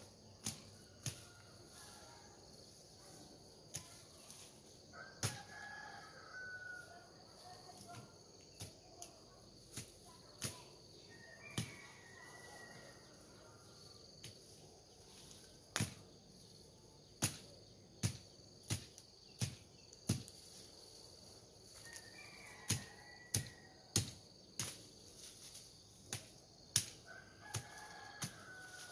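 Irregular sharp cracks and knocks of dry bamboo and brush being cut and snapped by hand. A rooster crows four times.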